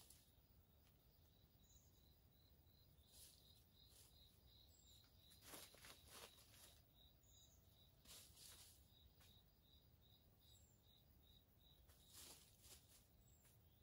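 Near silence: faint outdoor ambience with a small insect chirping steadily, about three high chirps a second, and a few brief soft noises.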